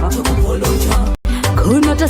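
Dancehall riddim music with a heavy bass beat and a male voice singing in Shona. The beat cuts out for an instant just over a second in.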